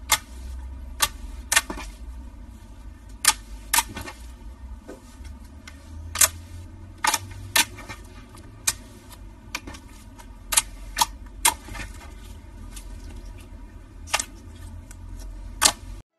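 Slime being pressed and kneaded by hand, giving off sharp popping clicks at irregular intervals, about one or two a second, over a low handling rumble.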